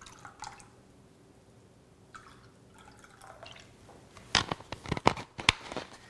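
Soda poured in small splashes from a plastic bottle into cups of water, faint and broken. Near the end comes a quick run of sharp plastic clicks as the bottle's screw cap is twisted back on.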